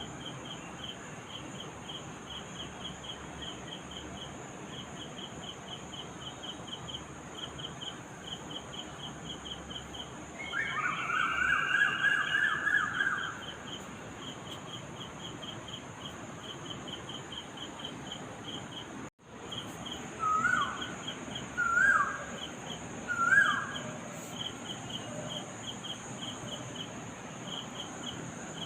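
Pre-dawn outdoor chorus: crickets chirping in a steady pulsed rhythm over a high insect drone. A bird gives a loud trilled call about 11 seconds in, and after a brief break in the sound, a bird gives three short rising calls a second or so apart.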